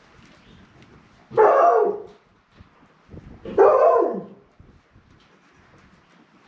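Puppies barking twice, two drawn-out calls a couple of seconds apart, each dropping in pitch at the end: puppies unhappy at being left out.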